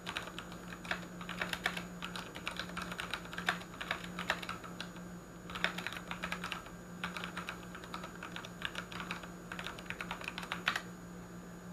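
Typing on a Ducky One 2 mechanical keyboard with tactile Cherry MX Brown switches: quick runs of keystrokes broken by short pauses, stopping about a second before the end. A faint steady low hum lies underneath.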